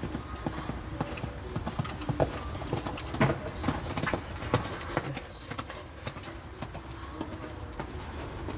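Hoofbeats of a cantering horse on a sand arena, a run of strikes that is loudest in the middle and thins out toward the end.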